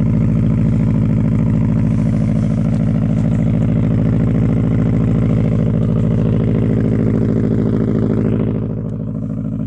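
Subaru Forester S-Turbo's turbocharged flat-four (WRX engine), breathing through a 2.5-inch exhaust, idling steadily while still cold after a start at −11 °C. The sound gets slightly quieter about eight and a half seconds in.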